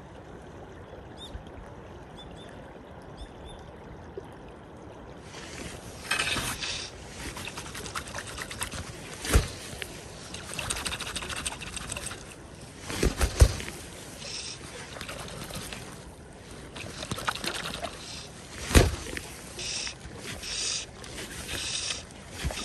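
River current washing and lapping around a wading angler, growing louder and brighter about a quarter of the way in, with four sharp knocks, two of them close together about halfway through.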